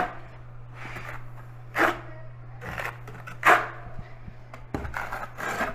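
Steel trowel spreading thinset mortar on backer board: four short wet scraping strokes, about one every second and a half, over a steady low hum.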